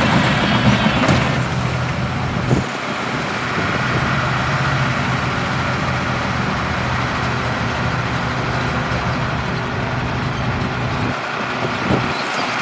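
Heavy diesel earthmoving machinery running steadily, with a short knock about two and a half seconds in.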